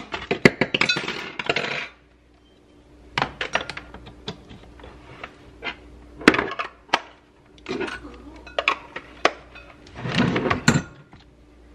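Metal hand-mixer beaters and a glass mixing bowl clinking and clattering as the beaters are handled and fitted into the mixer: a run of sharp clinks and clicks, with a faint steady hum underneath.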